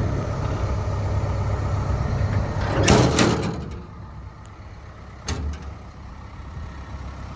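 Kobelco excavator's Hino diesel engine idling with a steady low hum. About three seconds in there is a loud rushing burst, after which the engine sounds quieter, and a single sharp click follows about two seconds later.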